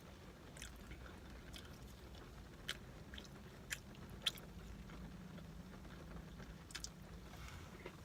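Close-up chewing with wet mouth smacking: a string of sharp smacks about a second apart, over a low steady hum.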